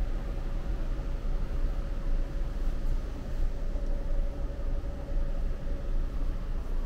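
Indoor shopping-mall ambience: a steady low rumble with a faint steady hum that fades out near the end.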